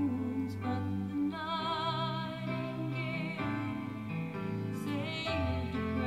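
A woman singing a slow song in long held notes with vibrato, over steady instrumental backing.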